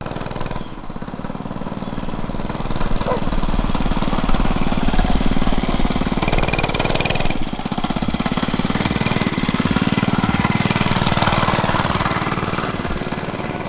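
Monster Moto 105 mini bike's small single-cylinder engine running as the bike is ridden, getting louder about two seconds in, with a brief dip about halfway through.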